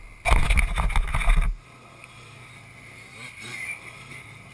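Quad (ATV) engine close by in a loud burst of about a second that cuts off suddenly, then a quad engine revving faintly in the distance.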